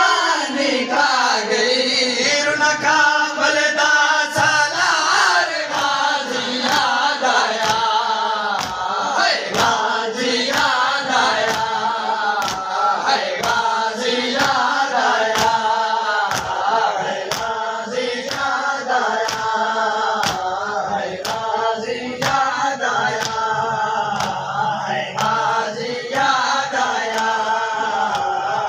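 Men's voices chanting a noha, a Muharram mourning lament, in unison, over steady rhythmic matam: open hands slapping chests together about three times every two seconds, the beat settling in about six seconds in.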